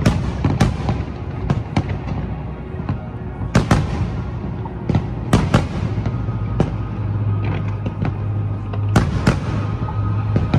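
Aerial fireworks shells bursting in an irregular series of sharp bangs, a few louder ones standing out every second or two, over a steady low hum that comes in about halfway through.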